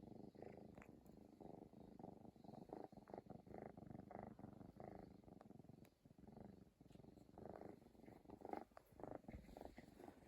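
Kitten purring, a faint, rough, continuous purr with a brief pause about six seconds in.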